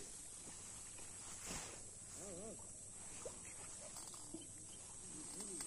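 Faint open-air pondside ambience: a steady high hiss, with a distant voice calling briefly twice, in the middle and near the end. A soft knock about one and a half seconds in.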